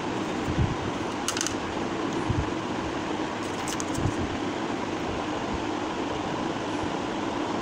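Steady mechanical hum in the room, with a few light clicks and soft taps as a plastic stationery tool and its ruler strip are handled, the clicks about a second and a half in and again between three and four seconds in.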